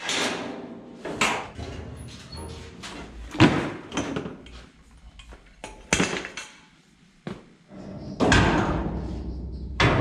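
Steel parts of a porta power hydraulic body jack clanking as they are taken from their case and fitted together: several separate metal knocks with a ringing tail, a second or two apart.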